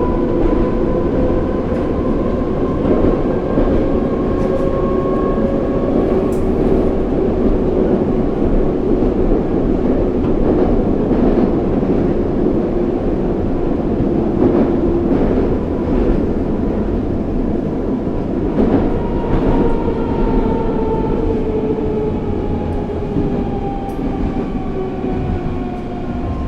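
Interior of an 81-740/741 Rusich metro train running between stations: a steady multi-tone traction-drive whine over wheel and track rumble, with a few faint rail clicks. In the second half the whine falls steadily in pitch as the train slows for the next station.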